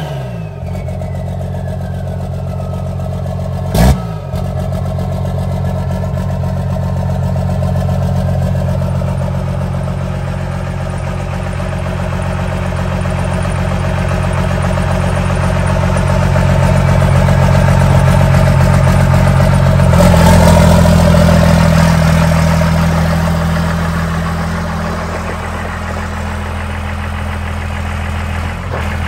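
First-gen Dodge Ram's Cummins diesel idling steadily, its exhaust running out a hood stack capped with a galvanized metal trash can. There is a single sharp knock about four seconds in, and the engine note steps a little higher around twenty seconds in.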